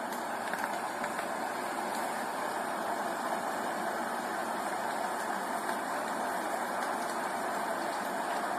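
Steady rain: an even, unbroken hiss with a few faint ticks of drops.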